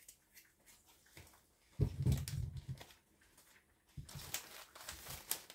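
Thin plastic bag crackling and rustling as a hand rummages in it for a potato, from about four seconds in. Before that, faint light scraping of a knife peeling a potato, and a short dull thump about two seconds in.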